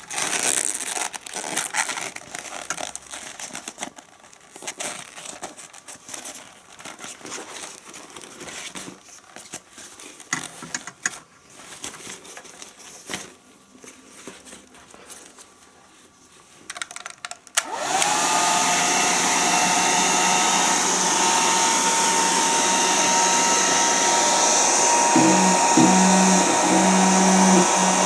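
Rustling and handling noises, then about 18 seconds in a Krups Quickair 600 bonnet hair dryer is switched on: its fan motor spins up with a short rising whine and runs steadily, blowing air. A lower hum joins near the end.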